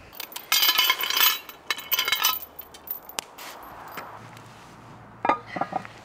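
Metal clinking and clattering at a cast-iron Dutch oven: two short bursts of ringing clanks within the first couple of seconds, then quieter.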